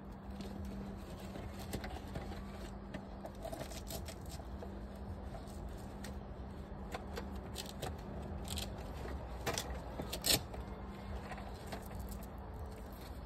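Hands fitting a fabric tool organizer onto a bucket: faint rustling and handling with scattered clicks and taps, the sharpest just after ten seconds in, over a steady low hum that fades out about nine seconds in.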